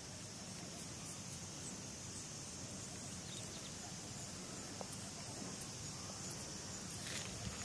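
Faint, steady outdoor background noise with a constant high hiss and a low rumble, broken by a couple of soft clicks.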